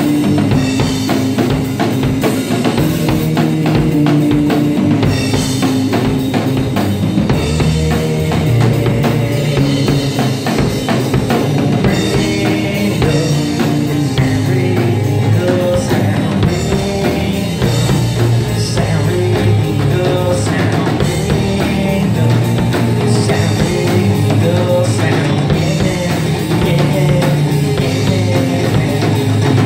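Full electric rock band playing live: electric guitars over a drum kit with steady bass drum and snare hits.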